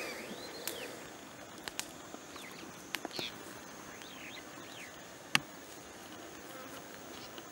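Outdoor bush ambience: a steady high insect drone with a few short chirps, broken by scattered sharp clicks, the loudest about five seconds in.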